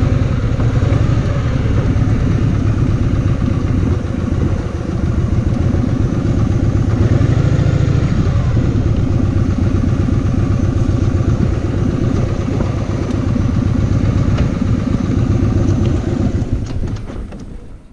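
Kawasaki VN2000's big V-twin engine running, a steady, loud beat of low firing pulses that swells briefly midway and fades out near the end.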